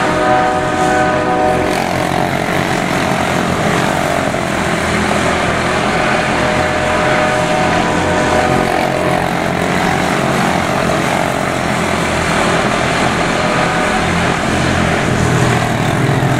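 A field of quarter-midget race cars running laps together, their small single-cylinder engines making a steady, overlapping drone with pitches that shift as the cars pass.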